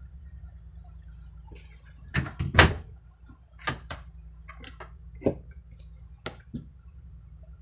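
Door being opened and handled, most likely the RV's: a string of sharp clicks and knocks, the loudest about two and a half seconds in, over a low steady rumble.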